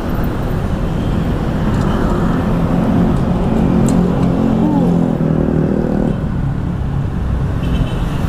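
Motor scooter running at low speed while turning in and rolling over rough ground, with a steady low rumble of engine, road and wind noise; the engine note stands out most in the middle of the stretch.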